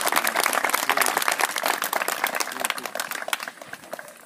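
A group applauding with many hands clapping, a few voices mixed in. The clapping thins out and dies away near the end.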